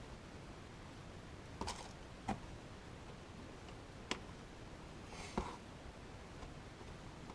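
Four short clicks and scrapes of a pry stick working the glued digitizer glass loose from an iPad Air's frame, the last one the loudest.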